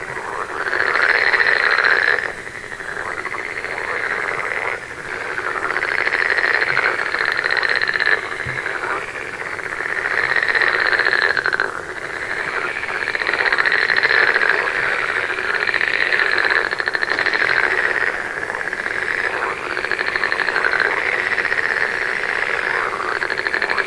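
A chorus of frogs croaking, many calls overlapping in continuous swells.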